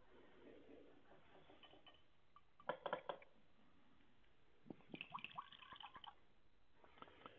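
Faint small clinks of altar vessels and a trickle of liquid as the chalice is prepared at the offertory. There is a quick cluster of clicks about three seconds in, then a longer run of light clinks and trickling around five to six seconds.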